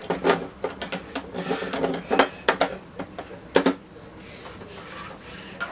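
Hands handling a Small World Harmony Blessing musical wall clock: a quick, uneven run of clicks, taps and knocks against its case that stops about four seconds in.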